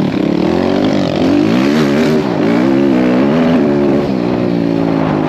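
190cc single-cylinder four-stroke pit bike engine running under way, its pitch climbing and dropping several times as the throttle is opened and eased.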